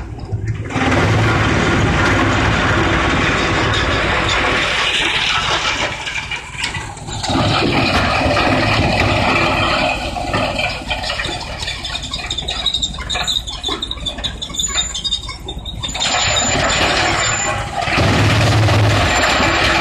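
Industrial drum wood chipper running and chipping wood: loud, dense machine noise that swells and dips several times as material goes through.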